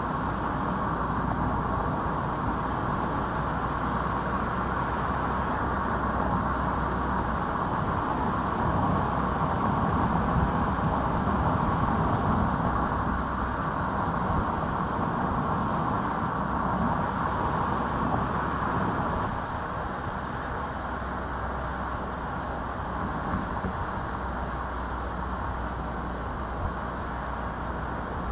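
A car driving along a road: steady engine and tyre noise. It grows a little louder in the middle and eases slightly about two-thirds of the way through.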